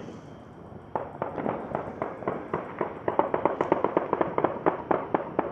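A long, rapid run of sharp pops at about four a second, beginning about a second in and growing louder about three seconds in. Taken from its steady rhythm for celebratory gunfire rather than firecrackers.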